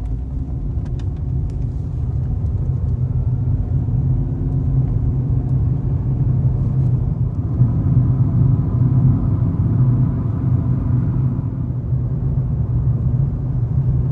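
A car driving: a steady engine and road rumble that starts abruptly.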